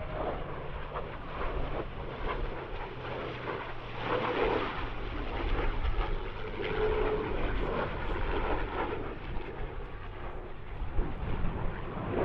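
An F-22 Raptor and a P-51 Mustang flying together in formation. The Raptor's twin turbofan jets and the Mustang's V-12 piston engine and propeller blend into one steady engine roar that swells and eases a couple of times.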